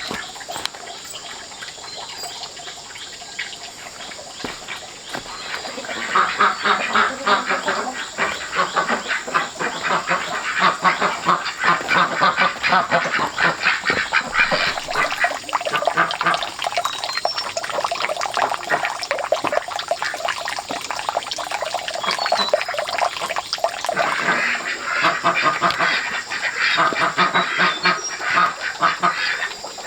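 Ducks quacking in a group, many overlapping calls, getting much louder from about six seconds in.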